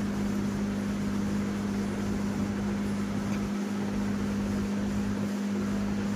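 Steady hum of a cooling fan running: a constant low tone under an even hiss, unchanging throughout.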